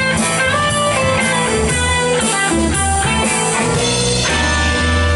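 A live band playing an instrumental break with no singing, a bluesy rock groove. Electric guitar leads over bass guitar and a drum kit.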